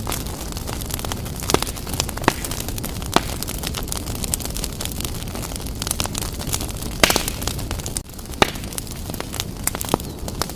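Fireplace fire burning strongly: a steady low rumble with sharp crackles and pops at irregular moments, a louder crackle about seven seconds in and another a little over a second later.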